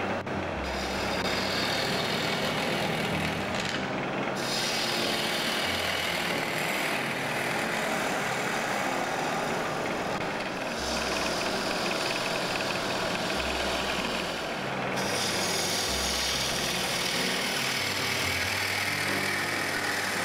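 Wood lathe turning a wooden blank while a hand-held gouge cuts into its spinning face, hollowing the cavity of a wooden glassblowing mould: a continuous scraping, shaving cut with wood chips flying off.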